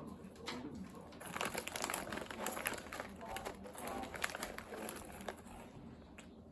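Rustling and crinkling handling noise: a dense run of small crackles that thins out near the end.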